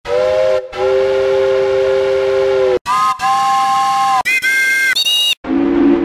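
Multi-tone train horn sounding a short blast and a long blast, then further blasts that step up in pitch, each higher and shorter than the last. About five and a half seconds in, a lower horn chord starts and holds.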